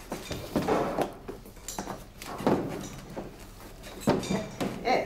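Cutlery and dishes clinking and knocking on a table, several separate clinks spread through a few seconds.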